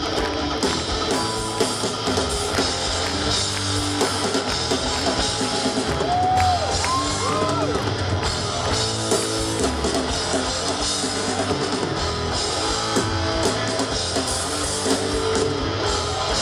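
Live rock band playing guitar and drum kit in an instrumental passage without singing.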